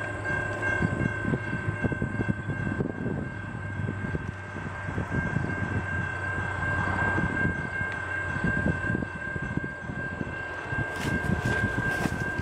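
Wind buffeting the microphone over the low rumble of a distant Canadian Pacific train approaching, with a steady high-pitched tone running throughout.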